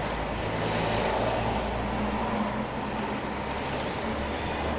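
Steady car interior noise heard from inside the cabin: a low engine hum under an even hiss.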